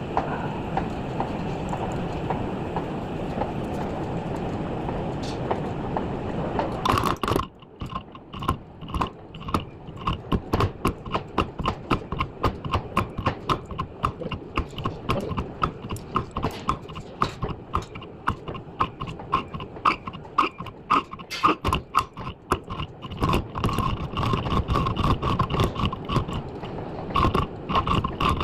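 Workshop machinery runs steadily and cuts off about seven seconds in. Rapid, irregular metallic knocks and taps follow, several a second, each with a short ring.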